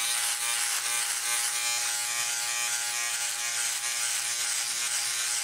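Philips OneBlade electric trimmer-shaver running with a steady buzz as it is drawn over stubble on the jaw and neck.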